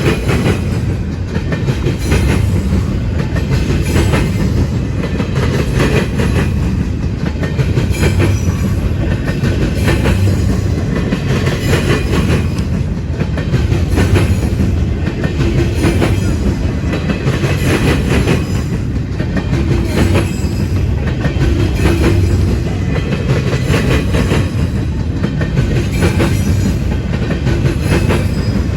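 Freight cars of a BNSF manifest train rolling past: a steady, loud rumble of wheels and cars, with frequent clicks as the wheels cross rail joints.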